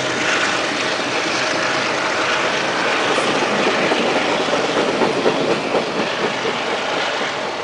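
Amtrak passenger train cars rolling past close by: a steady rushing rumble of steel wheels on rail, with a run of sharper wheel clacks over rail joints about two-thirds of the way through.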